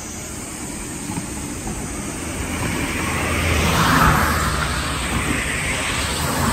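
A car passing by on the road, its engine and tyre noise swelling to a peak about four seconds in and then fading away.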